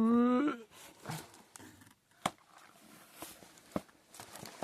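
A short held "uhh" at the start, then scattered clicks, taps and light rustling of a boxed monitor arm and its packaging being handled, with two sharper clicks in the second half.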